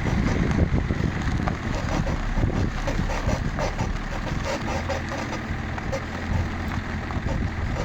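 Rear suspension of a BMW E53 X5 squeaking, with short squeaks repeating over the rumble of the car rolling along.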